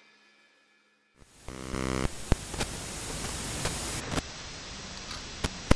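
About a second of near silence with a faint hum. Then a static-like hiss comes in, with a short low buzz and scattered sharp clicks and crackles.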